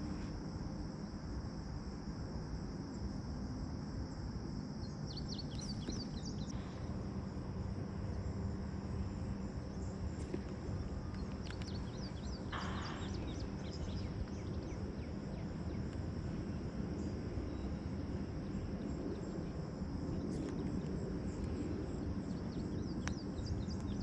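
Insects droning steadily at a high pitch over a low rumble. A bird calls in short runs of quick chirps about five seconds in, again around twelve seconds, and near the end.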